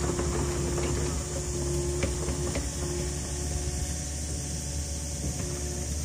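An engine running steadily at idle, with a few light clicks and knocks over it.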